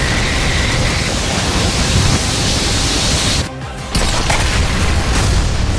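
Loud, steady rushing noise from a fight-animation sound effect, with music underneath; it drops out briefly about three and a half seconds in, then comes back.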